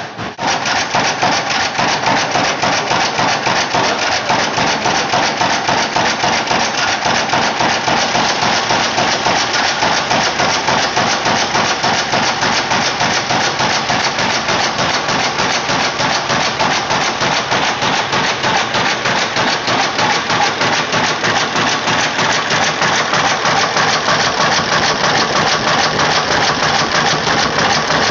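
Circa-1918 Blaisdell four-stroke engine-compressor (65 hp, 180 rpm) running, with a loud, steady rhythmic clatter of a few beats a second.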